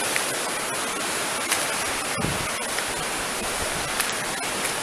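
Steady rush of a river running high, heard from the bridge above it, with a few faint footsteps on the wooden ties.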